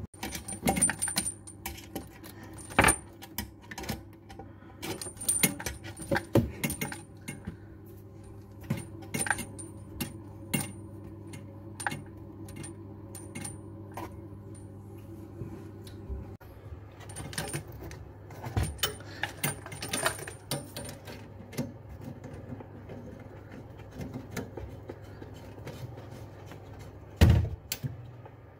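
Irregular small metallic clinks and taps of a basin mixer tap's metal fittings and tools being handled while the tap is fitted under the basin, with one louder knock near the end. A low steady hum runs underneath.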